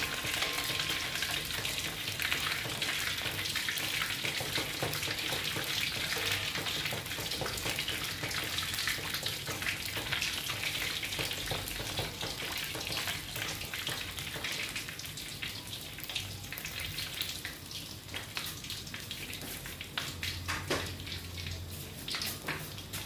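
Pork leg deep-frying in hot oil in an aluminium wok: a steady sizzle with constant sharp crackles and pops as the skin crisps. The sizzle eases a little after the midpoint.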